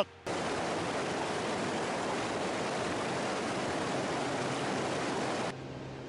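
Steady rushing of a fast-flowing river, starting abruptly and ending in a cut to a quieter hiss with a faint low hum near the end.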